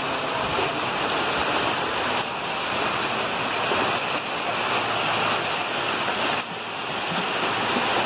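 Heavy rain and muddy floodwater rushing down a street, a steady rush of water.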